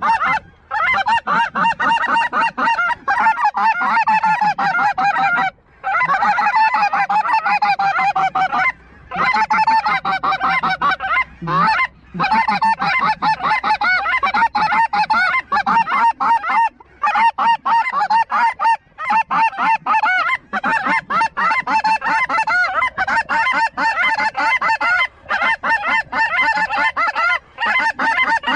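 A large flock of geese honking, a dense chorus of many overlapping calls, broken off briefly a few times.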